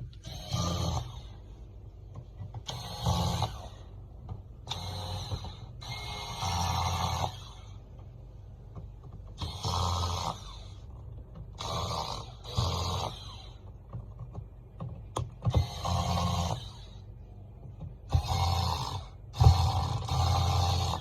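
A small motor whirring in about eleven short bursts, each half a second to a second and a half long, with a few sharp clicks near the end.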